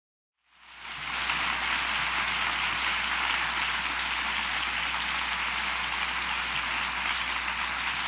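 Audience applauding, fading in about half a second in and then holding steady.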